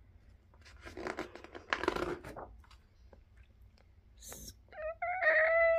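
A picture-book page turned over with a papery rustle between one and two and a half seconds in. Near the end comes a loud, high, drawn-out vocal squeal, a reader's voice imitating a squeaking screen door.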